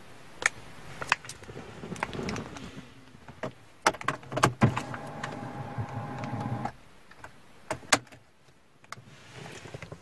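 Mercedes W212 ignition key being inserted and turned one notch, with a series of sharp clicks and some handling noise. A short steady electric whir runs for about two seconds in the middle as the car's electrics switch on.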